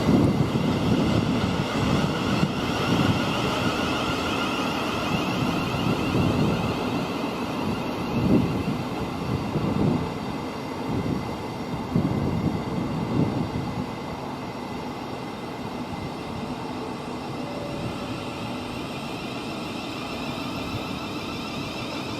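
A train running through the station, a steady rumble and hiss with a few heavy knocks from the wheels in the first half, then fading and easing off over the second half.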